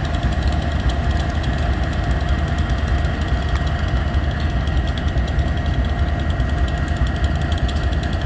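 An engine running steadily: a deep, even rumble with a fast, regular ticking over it.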